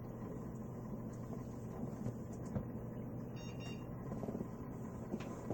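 Desktop computer running with a steady low hum as it boots, with a faint, short, high tone about three and a half seconds in.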